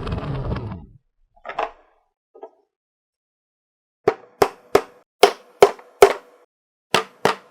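Marbles rolling along a marble run for about the first second, then near the end a string of about eight sharp clacks in some three seconds as marbles drop and knock against the track pieces.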